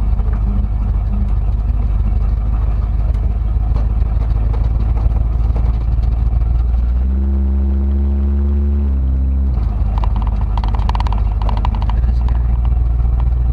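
The Ranchero's 351 Windsor V8 running, heard as a steady low rumble from inside the cab, with a steadier humming note for about two and a half seconds midway.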